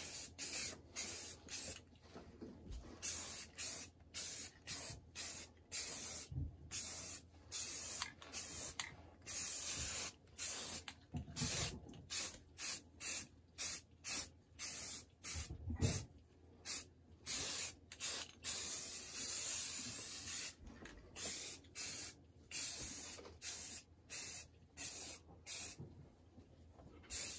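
Aerosol spray paint can hissing in many short bursts, with brief gaps between, as it is sprayed along model railroad track.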